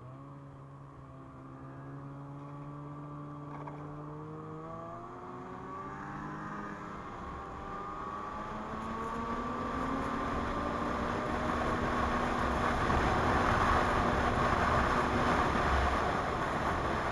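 Snowmobile's two-stroke 600 carbureted engine (2017 Ski-Doo MXZ) running, its pitch creeping up at first. It then grows steadily louder as speed builds, with a rushing noise taking over in the second half.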